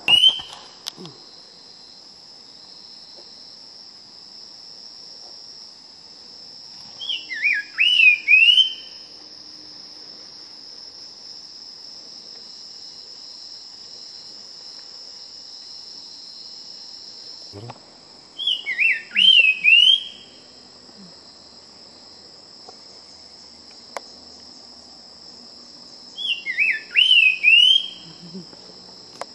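Nava's wren singing short phrases of loud, slurred whistled notes, repeated about every eight to ten seconds, over a steady high buzz of insects.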